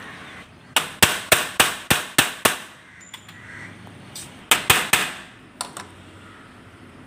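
Small hammer striking a metal fitting on a window frame: seven quick blows about three a second, a pause, then three more.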